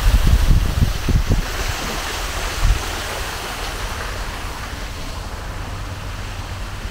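Wind blowing across the microphone: gusty low buffeting for the first few seconds, then a steady rushing noise.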